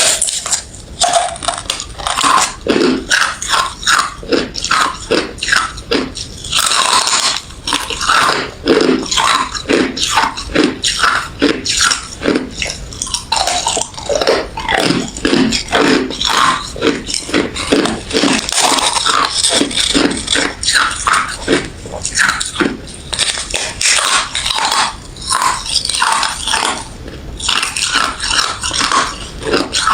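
Close-up biting and chewing of refrozen crushed ice and freezer frost: a steady run of crisp, crunchy bites, about two to three a second.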